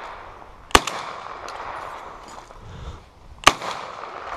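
Two shotgun blasts from a Browning Silver Hunter 12-gauge semi-automatic firing buckshot at a thrown clay, just under three seconds apart, each trailing off in a short echo.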